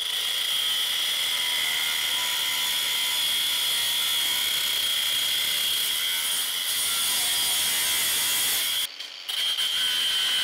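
Angle grinder with a cut-off wheel cutting through a perforated steel hang rail: a steady high whine over a hiss of grinding. It breaks off briefly near the end, then the cutting resumes.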